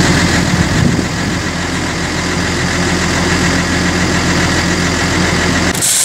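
Tractor engine running steadily at idle, a low even hum. It cuts off abruptly near the end.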